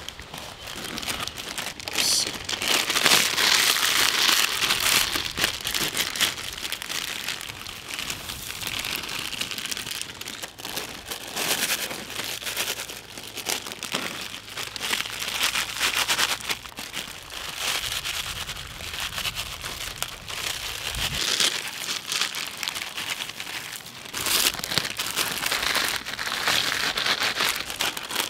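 Lay's potato chip packets crinkling and tearing open as the chips are shaken out, a dense, continuous crackle.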